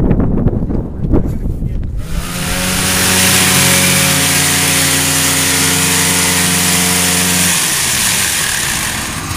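An old snowmobile's engine held at high, steady revs while its track spins on concrete in a burnout, with a loud hiss over it. The engine note drops out about three quarters of the way through. Before it, for about two seconds, there is rough, gusting noise.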